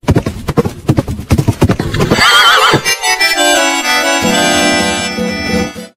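Logo jingle: a run of rapid clip-clop clicks with a wavering, whinny-like cry, then a held musical chord whose lowest note drops about a second later.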